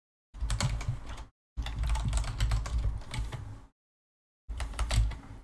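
Typing and clicking on a computer keyboard, in three short spells of rapid clicks that each cut off abruptly into silence.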